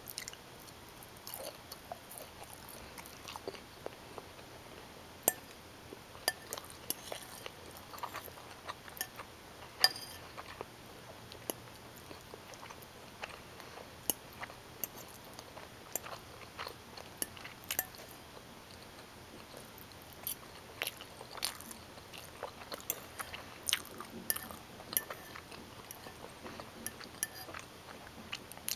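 A person chewing bowtie pasta in tomato sauce with Italian sausage: irregular short mouth clicks and bites, one to three a second.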